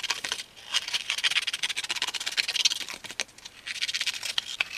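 Scissors cutting through thin cereal-box card: runs of crisp snipping and rasping strokes, with short pauses between them.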